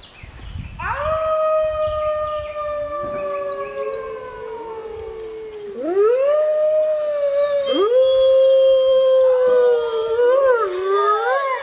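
Canids howling: one long howl slowly falling in pitch, joined by a second voice, then from about halfway several overlapping howls rising and holding together in a chorus.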